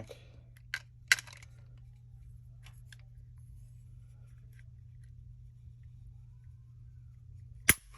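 A few small clicks and taps of a trigger pull gauge being set and drawn on a Glock 43's trigger, then one sharp click near the end as the trigger breaks and the striker releases on the empty pistol. A steady low hum lies underneath.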